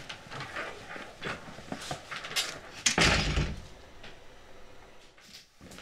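Light clicks and knocks of things being handled and of footsteps in a small room, then a louder door-closing sound about three seconds in.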